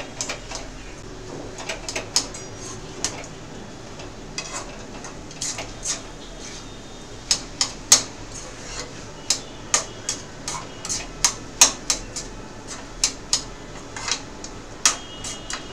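A metal spatula stirring chopped bitter gourd in a metal kadai, clinking and scraping against the pan in quick irregular strokes. The clinks are few over the first few seconds and come thick and fast from about seven seconds in.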